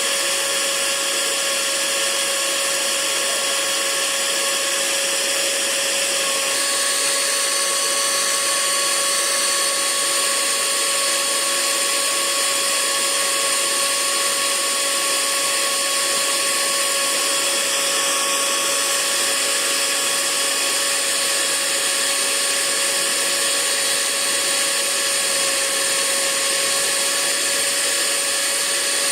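Hair dryer running steadily: an even rush of air with a thin motor whine on top, which shifts slightly about six seconds in.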